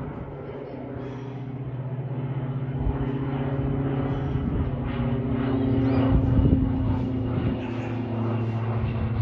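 Twin-engine propeller airplane flying overhead: a steady engine and propeller drone with a low hum that grows louder over the first several seconds as it passes.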